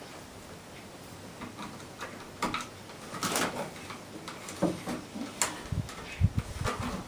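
Scraping, rustling and light clicking of sheathed electrical cable being worked into a plastic electrical box on a wall stud, with a few dull knocks about six seconds in.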